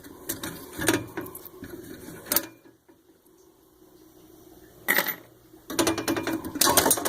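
Metal parts and hand tools clicking and clattering as a traffic light controller is taken apart: a few knocks at first, a quieter spell, then a quick run of clicks near the end.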